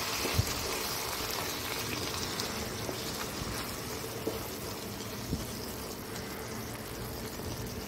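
Eggplant curry bubbling and sizzling in a pan as a wooden spatula stirs it, with a few faint taps of the spatula; the sound fades slowly.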